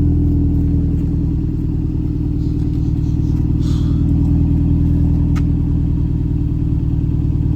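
Subaru WRX turbocharged flat-four engine idling steadily with a low rumble, running on freshly installed equal-length headers and downpipe with no exhaust leaks.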